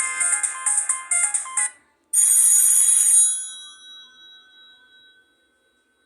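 Sony Ericsson K330a mobile phone playing ringtones through its small speaker: a synthesized melody of quick notes ends about two seconds in, and after a brief gap a bright ringing tone sounds for about a second, then fades away.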